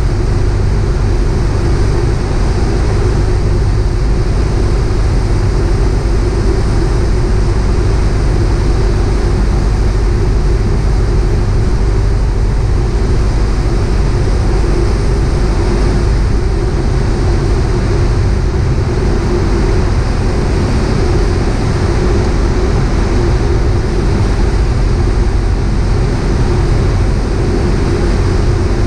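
Piper PA-38 Tomahawk's four-cylinder Lycoming O-235 engine and propeller droning steadily, heard from inside the cockpit during a descent.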